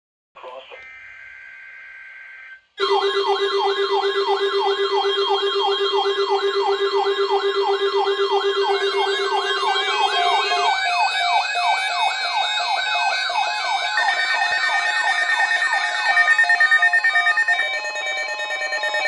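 Electronic warning siren tones: layered rising-and-falling wails repeating quickly over steady tones, loud. They begin about three seconds in, after a short, quieter burst of warbling tones, with a steady higher tone joining later and stepped beeps near the end.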